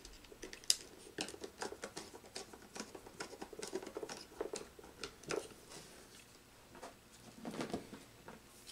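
Faint clicks and scrapes of a screwdriver turning a terminal screw on a contactor and of wire being handled, a quick run of small ticks for about five seconds, then a short soft rustle near the end.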